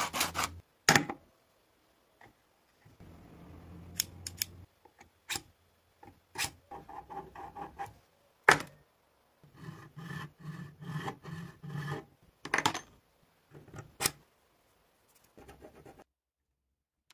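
Handling noises from a steel vernier caliper and a block of amber: sharp clicks and knocks as the block is picked up and set down, and stretches of metal scraping as the caliper jaw is slid along its beam and against the block.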